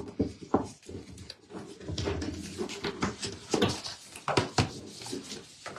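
A pet dog making small noises close by, among irregular clicks and taps.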